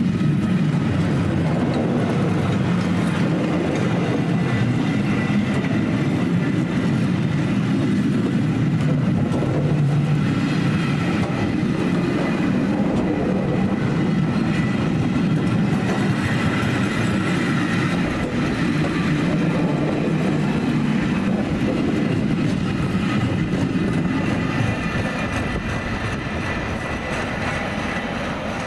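A train running past, its wheels clattering steadily over the rails, growing a little quieter in the last few seconds.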